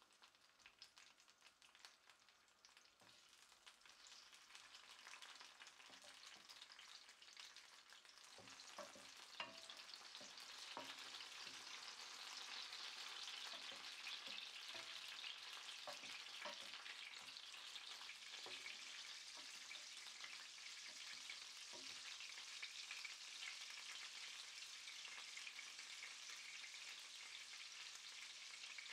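Prawn heads frying in hot oil in a nonstick pan to make prawn oil: a faint sizzle that builds over the first several seconds and then holds steady. A wooden spatula stirs them, with occasional short taps and scrapes against the pan.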